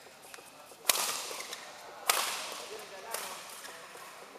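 Badminton rackets striking a shuttlecock in a rally: two sharp, loud cracks a little over a second apart, then a lighter hit, each echoing through the sports hall.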